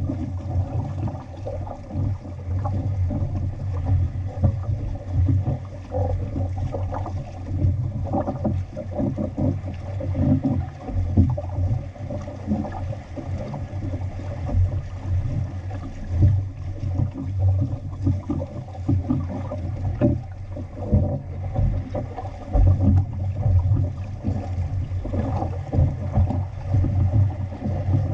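Water rushing and splashing along the hull of an outrigger sailing canoe under way, with wind buffeting the microphone in uneven gusts.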